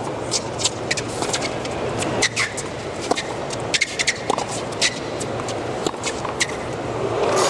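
Murmur of a large tennis-stadium crowd between points, with many short, sharp sounds scattered irregularly through it.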